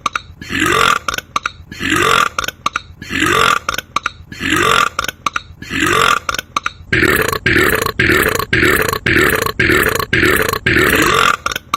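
A man's belch repeated about ten times at an even pace, roughly once a second, as if looped. Sharp clicks join in over the second half.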